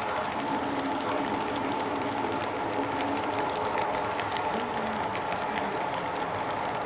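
Model railroad freight cars rolling past on the layout track: a steady rattle of small wheels on rail, with rapid light clicks throughout.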